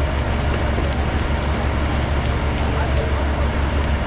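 Boat engine running steadily under a constant hiss of wind and water, with voices faintly underneath.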